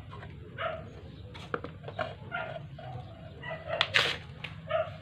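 Small electric motor of a motorized root-crop grater humming steadily. Over it come repeated short pitched cries, several a second, and a few sharp clicks, the loudest about four seconds in.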